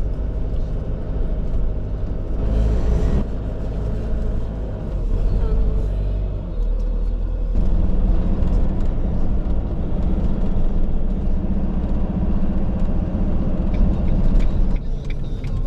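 Motorhome driving on the road: a steady engine and road rumble, the engine note changing about halfway through.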